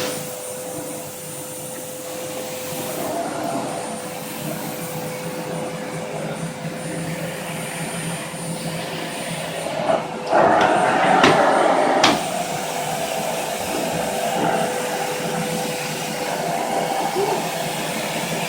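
Vacuum cleaner running steadily with a constant whine; about ten seconds in it gets louder for two seconds, with a few sharp knocks.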